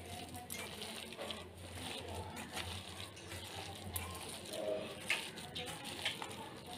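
A hand mixing coarsely ground chana dal batter with sliced onions and chopped coriander in a steel bowl: faint squishing and rustling with scattered light clicks.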